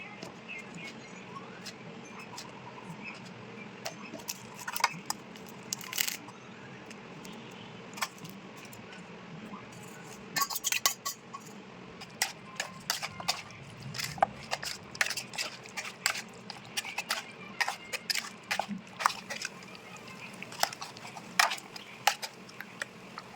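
Utensils clinking and scraping against cookware in irregular sharp clicks, sparse at first and coming thick and fast from about halfway through.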